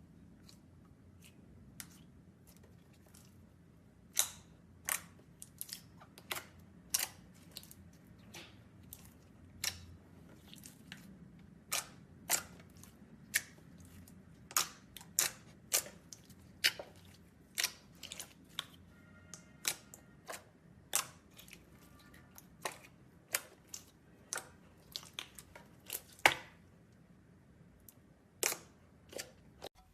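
Slime being handled, giving irregular sharp clicks and pops, one or two a second, starting about four seconds in.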